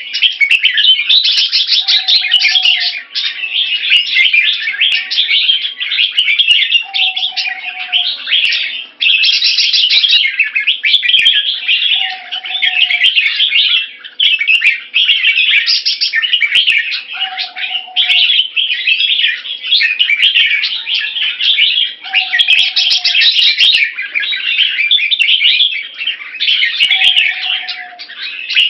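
Red-whiskered bulbul giving its keke: a fast, continuous chatter of harsh high notes that shifts in tone from phrase to phrase. Short, lower whistled notes recur about every five seconds.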